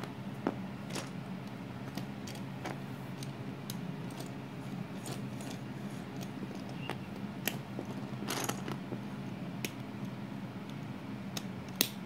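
Plastic Lego bricks clicking and clattering against a wooden floor and each other as pieces are picked up and snapped together: scattered sharp clicks, a brief clatter about eight seconds in and a sharper click near the end. A steady low hum runs underneath.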